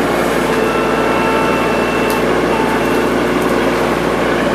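Yanmar SC2450 compact tractor's three-cylinder diesel engine running steadily, with a faint high whine laid over it for about two seconds starting about half a second in.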